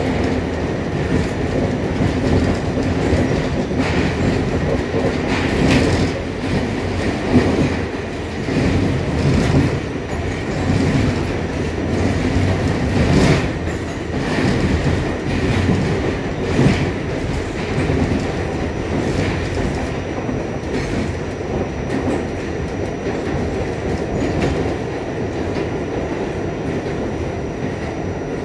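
R46 subway car running along the track, heard from inside the car: a steady rumble with irregular sharp knocks from the wheels and car body.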